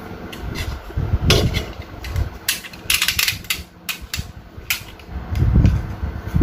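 Cutting and stripping the insulation off short wire ends, the lead wires cut from the oven's heating lamp: irregular sharp clicks and snips with handling knocks, a quick run of clicks near the middle and a few dull thumps near the end.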